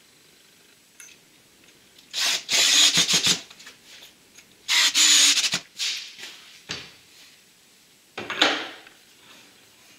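Four short bursts of rubbing and scraping as a heavy wooden bowl blank with a steel faceplate screwed to it is handled and mounted onto a wood lathe's spindle.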